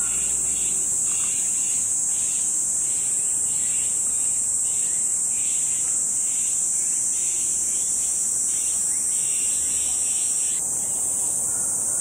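Cicadas singing: a loud, steady high-pitched drone, with a lower pulsing call repeating about twice a second that stops near the end.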